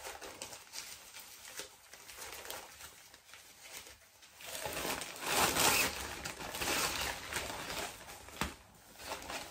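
Black nylon fabric of a folding camping chair rustling and crinkling as it is handled and unfolded, loudest about halfway through, with one sharp click near the end.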